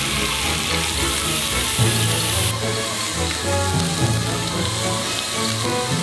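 Eel fillets sizzling on a grill under background music; the sizzle drops off abruptly about halfway through.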